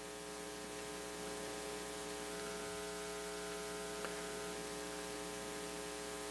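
Steady electrical mains hum with a buzzy stack of even overtones over faint hiss, with one faint click about four seconds in.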